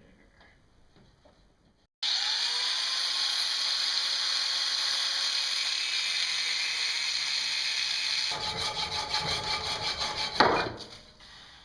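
A power tool starts abruptly about two seconds in and runs steadily with a high whine for about six seconds, turns into a rapid pulsing, gives one loud knock, then winds down near the end.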